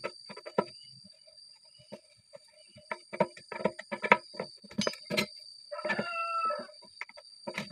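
Metal wrenches clinking, knocking and scraping on the bolts and nuts of a PVC hydraulic ram pump's flange as it is unbolted. A rooster crows briefly a little past halfway.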